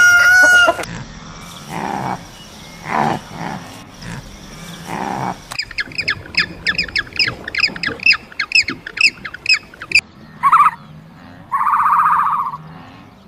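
A run of different animal calls: a few spaced low calls, then a bird's fast series of short, falling chirps, about three a second, then two loud buzzy calls near the end.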